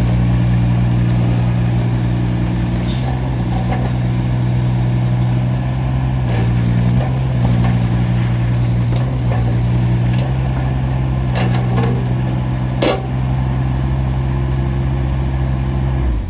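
Kubota U17-3a mini excavator's three-cylinder diesel engine running steadily, its note shifting slightly in steps every second or two. A few light clicks, and one sharper clank about thirteen seconds in.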